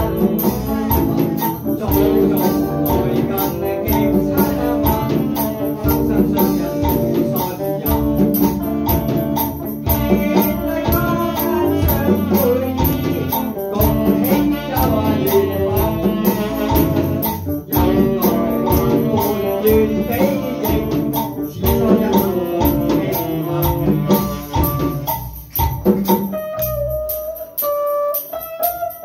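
Music with instruments and a steady beat, thinning to a few held notes near the end.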